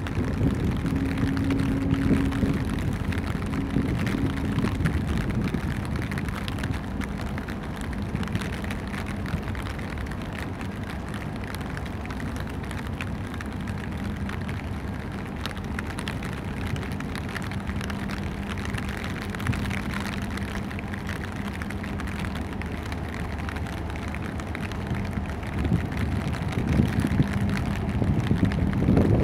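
Wind rumbling on the microphone over the low, steady drone of a large container ship passing close by, getting louder near the end.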